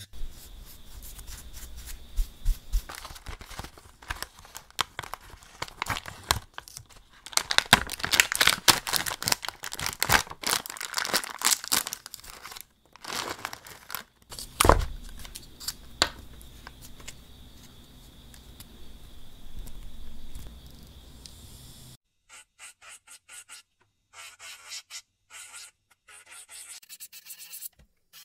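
Plastic bag of pink nail-drill sanding bands crinkling and rustling as it is handled and rummaged through, with a faint steady high tone under it that stops about two-thirds of the way through. Sparse small clicks follow near the end.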